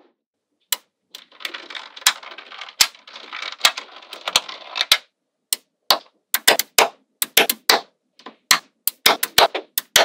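Small magnetic balls clicking sharply as they snap together. About one to five seconds in there is a stretch of continuous rattling and clattering, then a quick run of separate clicks.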